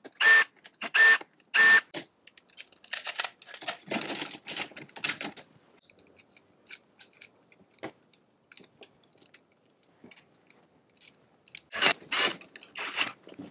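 Cordless drill-driver run in short trigger bursts, driving the bolts in the centre of a go-kart steering wheel: three quick whirring bursts at the start and several more near the end. In between come soft clicks and rattles of a metal bracket and bolts being handled.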